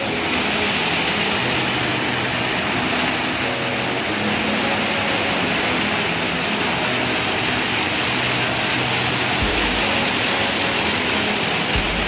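Small waterfall pouring over boulders into a rocky stream: a steady, loud rush of falling water.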